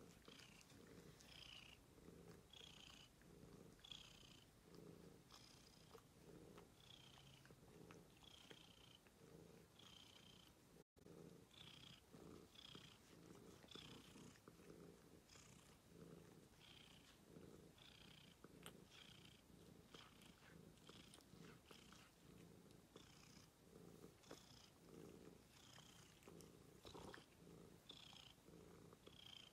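Domestic cat purring faintly in a steady pulsing rhythm. The sound cuts out for a moment about eleven seconds in.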